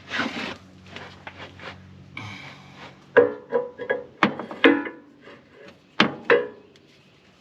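Irregular metal clanks and knocks, several ringing briefly, as steel parts are handled while fitting a hydraulic ram pin; they come in a quick cluster from about three seconds in. A low steady hum runs under the first two seconds.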